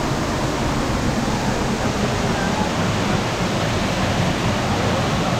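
Steady, loud rush of a waterfall, with falling water making an even roar that does not let up.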